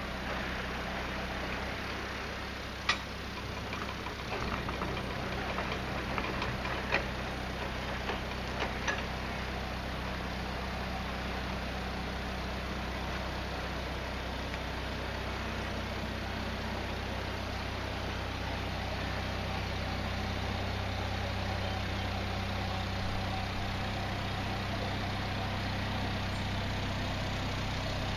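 Narrowboat diesel engine running slowly, a steady low throb that grows slightly louder in the second half as the boat creeps forward. A few sharp clicks and knocks come in the first nine seconds.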